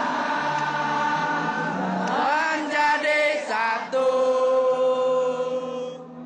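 Football supporters in the stands singing a chant together, many voices in unison, ending on a long held note.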